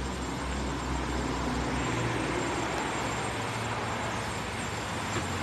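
Steady low hum and hiss of background noise, with a faint click near the end as the Toyota Vellfire's door handle is pulled.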